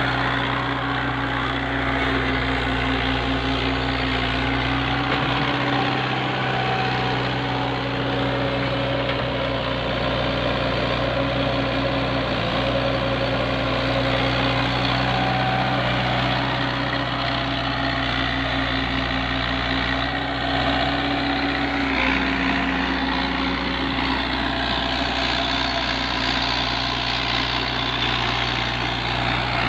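Mini excavator's diesel engine running steadily, its pitch shifting a little now and then.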